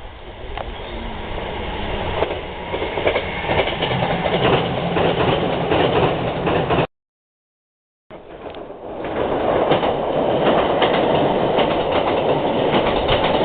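Kintetsu train passing close by, its wheels clacking over the rail joints. The sound drops out to dead silence for about a second around seven seconds in, where the recording is cut, then a passing train resumes just as loud.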